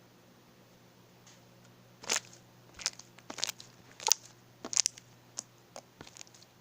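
Slime being pressed and squeezed by hand, giving an irregular string of sharp pops and crackles that starts about two seconds in.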